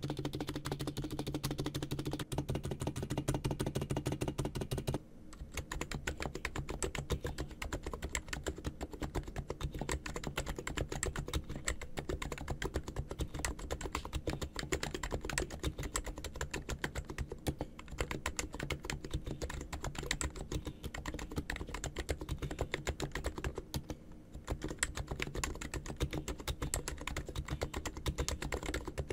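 Continuous fast typing on an ABKO K990 V3 electrostatic capacitive keyboard, a dense stream of key clicks. About five seconds in the sound changes as the stock-keycap typing demo begins.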